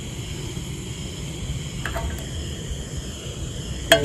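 Outdoor ambience: a steady low wind rumble on the microphone, with a steady high-pitched drone of insects over it. A faint brief voice about two seconds in, and a click near the end.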